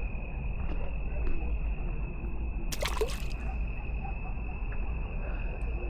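Crickets trilling steadily in one high unbroken tone over a constant low rumble, with a short burst of noise about three seconds in.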